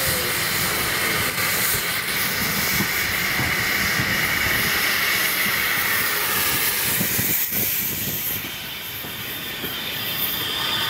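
Triple-headed steam locomotives, among them LBSCR Terrier No. 55 Stepney and E4 tank B473 Birch Grove, running in and passing close by, with a steady hiss of escaping steam over the clank of the engines.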